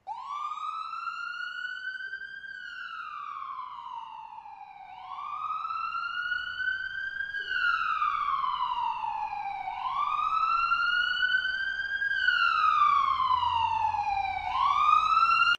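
Emergency vehicle siren wailing: one tone slowly rising and falling, about three full cycles of roughly five seconds each, growing louder toward the end.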